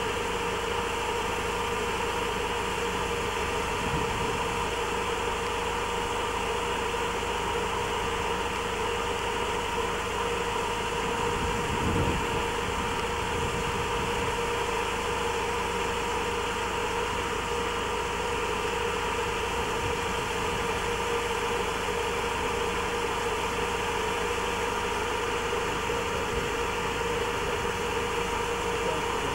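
Steady hiss from an old camcorder tape recording, with a constant mid-pitched electronic whine running under it. There is a soft bump about four seconds in and a slightly louder one about twelve seconds in, likely camera handling.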